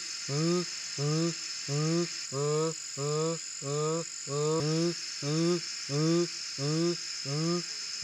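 A quail-like bird, the barred buttonquail, giving a long series of low, hooting calls, about one and a half a second, each note rising slightly. It goes on over a steady high insect hiss.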